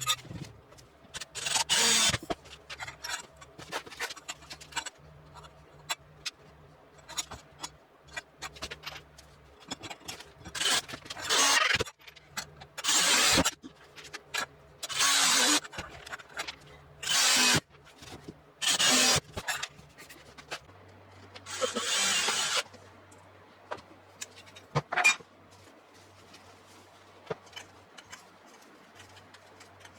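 An uneven series of about ten short rasping or scraping strokes, each lasting roughly half a second to a second, over a faint low hum.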